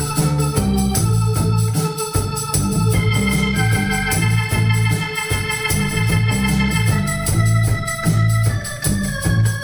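A live band playing: an organ-toned keyboard holding long chords over a pulsing bass line, with electric guitar and a steady rhythmic ticking on top.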